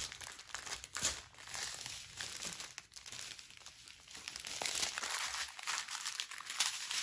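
Clear plastic bags of diamond-painting drills crinkling and crackling irregularly as a strip of them is handled and spread out by hand.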